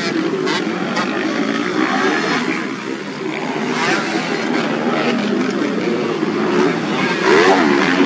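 Several off-road racing motorcycles running at once, their engines revving and wavering over one another in a dense, continuous drone. It grows louder about seven seconds in.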